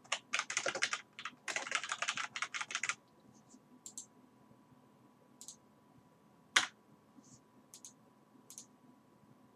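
Fast typing on a computer keyboard for about three seconds, then a few scattered clicks, one of them louder a little past the middle.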